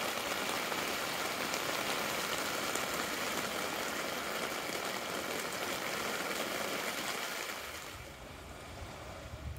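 Rain falling steadily on a tent, heard from inside it, a continuous even hiss of drops on the fabric; it fades away near the end.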